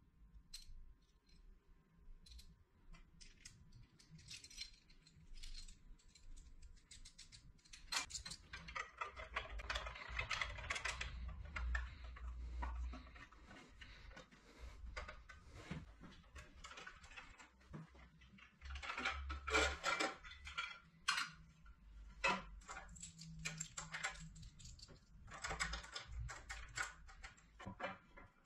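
Small metal parts of a bandsaw's rip fence clinking, tapping and scraping as a bracket and clamp are fitted by hand and the aluminium fence is worked against the steel table. The clicks come irregularly, with longer stretches of scraping and rattling about eight seconds in and again around nineteen seconds.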